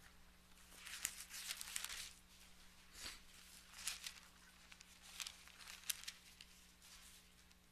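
Thin Bible pages being turned, a string of short, soft paper rustles and crinkles.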